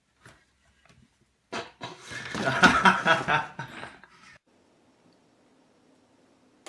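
A person laughing for about three seconds in quick pulses, starting about a second and a half in.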